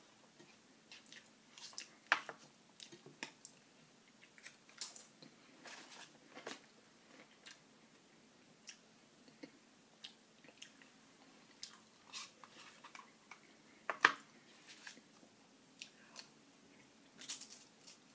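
A person eating chili with saltine crackers: chewing and crunching, with scattered short sharp clicks. The loudest of these come about two seconds in and about fourteen seconds in.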